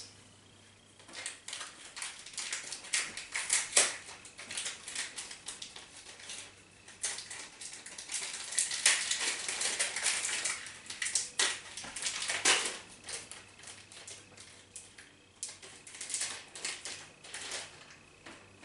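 Crinkling and rustling of a small plastic packet of white snowflake slime add-ins being handled and opened, in irregular crackly bursts with short pauses.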